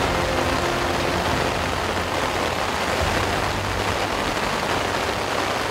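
Steady rain falling on the ground and water, with the tail of background music fading out in the first second or so.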